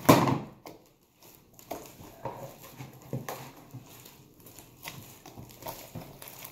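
Fluffy slime squelching and clicking as it is kneaded and squeezed by hand, in scattered small wet pops. A brief loud noise comes at the very start.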